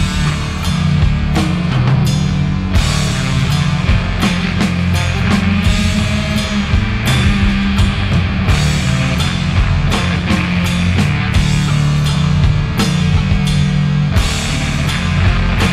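Background rock music with drums keeping a steady beat.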